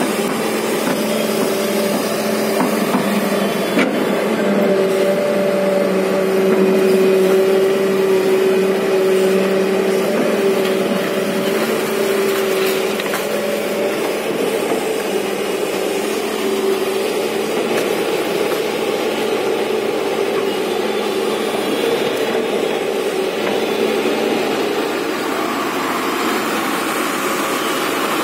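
Tata Hitachi hydraulic excavator's diesel engine running steadily under working load as it swings a full bucket of wet mud, with a steady droning hum that grows a little stronger for several seconds mid-way.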